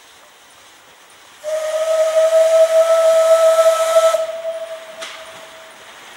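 Narrow-gauge steam locomotive's whistle blowing one long blast: a single steady note with a rush of steam hiss, starting suddenly about a second and a half in, loud for nearly three seconds, then dying away.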